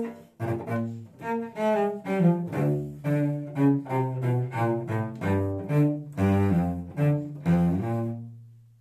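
Solo cello bowing a groovy, dance-like tune in short, separate notes, ending on a long low note that dies away.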